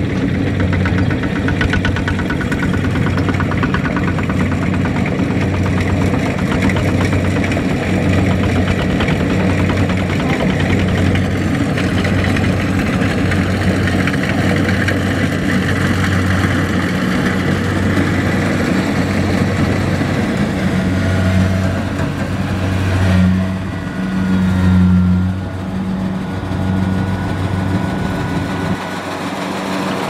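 Kubota DC70 rice combine harvester running under load as it cuts and threshes rice: a steady diesel engine-and-machinery drone with an even pulsing about once a second. It grows louder for a few seconds about three-quarters of the way through.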